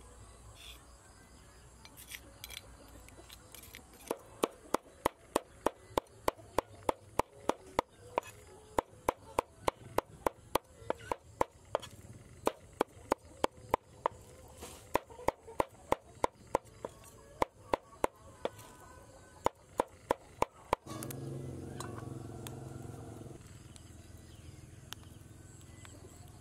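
Cleaver mincing frog meat on a wooden chopping board: a long steady run of sharp chops, about two or three a second, that stops about three-quarters of the way through. A brief louder low hum follows.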